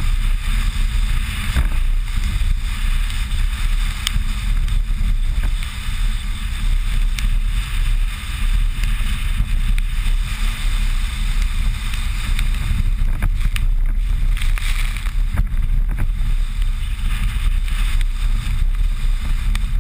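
Suzuki Grand Vitara driving along a bumpy dirt track, heard from a bonnet-mounted camera in its housing: a steady low rumble of engine and road mixed with wind noise over the microphone. A few sharp ticks are scattered through it.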